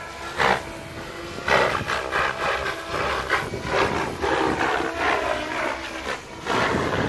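Electric SAB Goblin 700 Competition RC helicopter flying aerobatics overhead: the rotor blades and motor roar, swelling in about six sharp surges as the collective pitch is pumped through flips.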